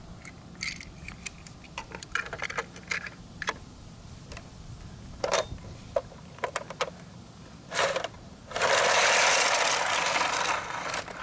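Small plastic toy cars being handled, with scattered light clicks and knocks, then a loud rapid rattle for about two seconds near the end.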